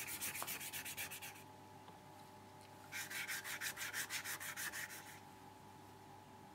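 Hand sanding of a bicycle's metal quill stem with wet and dry paper: fast, even back-and-forth rasping strokes in two spells, with a pause of about a second and a half between them.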